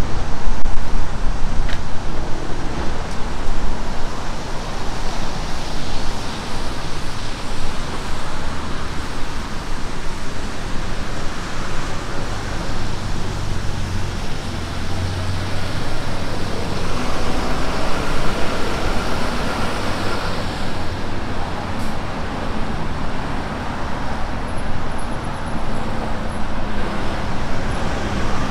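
Road traffic passing on a wet street, cars and a van with their tyres hissing on the wet surface and engines humming. Wind buffets the microphone, heaviest in the first few seconds.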